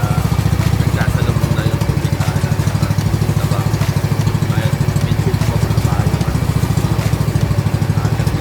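A motorized bangka's small engine running steadily at a constant speed, with a fast, even chugging beat.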